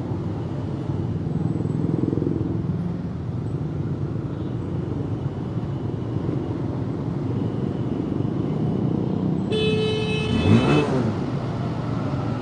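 Honda CB150R's single-cylinder engine running at low speed in slow, congested traffic, with the hum of surrounding vehicles. About nine and a half seconds in, a vehicle horn sounds for over a second.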